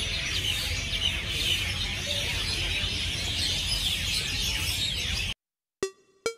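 A dense chorus of many small birds chirping over a low outdoor rumble. It cuts off abruptly about five seconds in, followed by two short musical notes.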